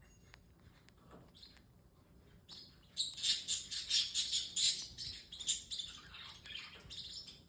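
Parrotlets chirping: a rapid run of high, chirping calls, about five a second, that starts about three seconds in after a few quiet seconds.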